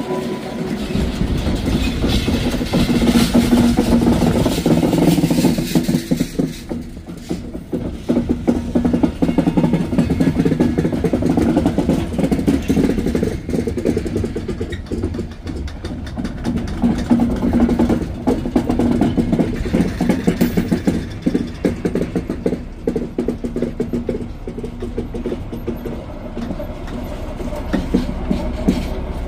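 Long yellow works train of container wagons and powered units rolling slowly past, its wheels clicking steadily over the rail joints under a low diesel drone. Near the end a class 218 diesel-hydraulic locomotive at the rear comes by.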